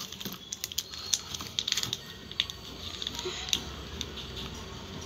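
Thin plastic wrapper of a super clay packet crinkling and crackling in irregular small clicks as it is opened and the soft clay is pulled out by hand.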